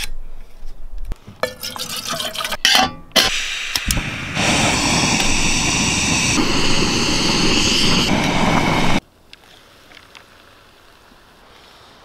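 Metal clicks and rattles as a burner is screwed onto a backpacking canister stove. Then a steady rushing hiss from the lit stove burning under a kettle, which stops abruptly about three-quarters of the way through.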